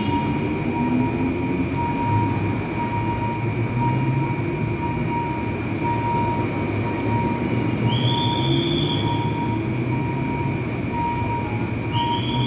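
Passenger train rolling over a road level crossing, wheels running with a steady rumble. Short wheel squeals come about eight seconds in and again near the end.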